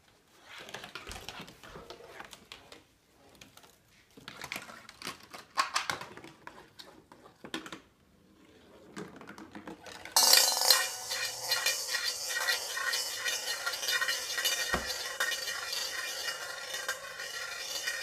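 A marble rolls and knocks its way down cardboard chutes. About ten seconds in it drops into a stainless steel bowl and keeps spinning around the inside, a loud continuous metallic rolling with the bowl ringing.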